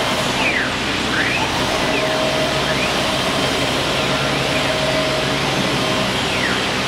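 CNC wood router running: a steady loud machine noise, with repeated short whines sliding up and down in pitch as the axis motors speed up and slow.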